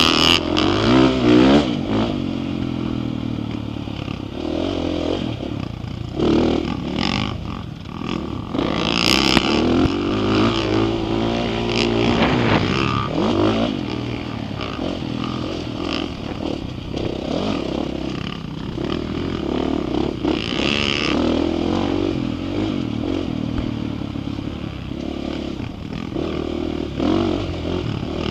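Dirt bike engine running under riding load, its pitch repeatedly rising as it revs up and dropping back, over and over.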